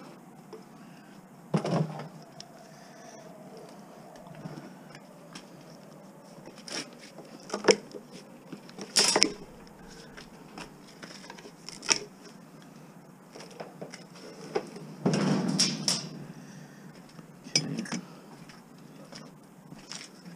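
Scattered metal clinks and knocks of hand tools working on parts of a commercial washing machine being taken apart for scrap, with a rougher noise lasting about a second about fifteen seconds in.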